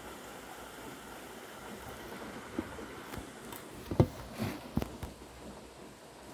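Steady rain hiss, with a few sharp knocks or drip hits, the loudest about four seconds in.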